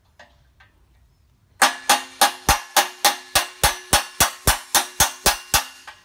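Hammer striking a steel pin punch in a steady run of blows, about three and a half a second, driving the roll pin out of a pallet jack fork's wheel assembly. Each blow gives a sharp metallic strike with a short ring. The hammering starts about a second and a half in.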